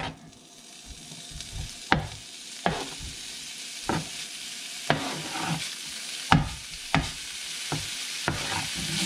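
Diced raw bacon starting to sizzle in a cast iron skillet, the hiss building steadily. Sharp knocks come about once a second as a knife scrapes the pieces off a plastic cutting board into the pan.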